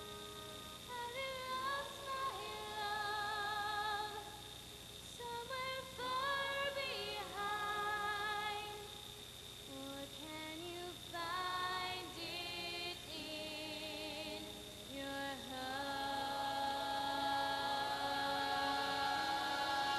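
A female soloist sings a slow melody into a handheld microphone, in phrases with short breaths between them and vibrato on the held notes. About three quarters in, fuller sustained harmony comes in behind her.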